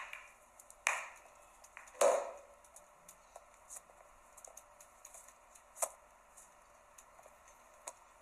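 Pool balls clacking against each other as they scatter across the table after a shot: two clear knocks in the first two seconds, the second ringing briefly, then fainter scattered clicks and one sharp clack a little before six seconds.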